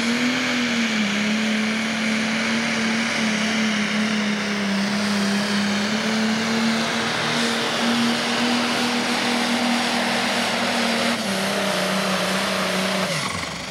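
International pro stock pulling tractor's turbocharged diesel engine running flat out at high, steady revs while dragging the weight-transfer sled. Near the end the engine lets off and its pitch falls sharply.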